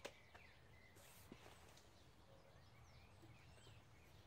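Near silence: faint outdoor background with a few distant bird chirps and a soft click at the start.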